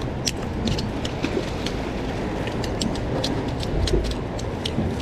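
Steady rush of wind and surf at a beach, with irregular sharp clicks, several a second.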